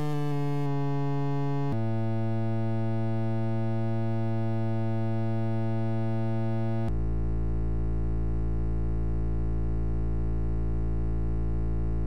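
Synthesizer music of long held buzzy tones, each held several seconds. The chord changes abruptly about two seconds in and again about seven seconds in, the last tone with a heavy low bass.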